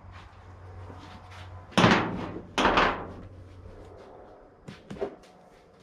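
Two loud clunks less than a second apart, then a few softer knocks, over a low steady hum that fades out partway through.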